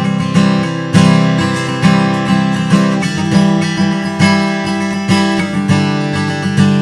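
Taylor 314 steel-string acoustic guitar strummed in a steady rhythm, about two chord strokes a second, with the chords ringing between strokes.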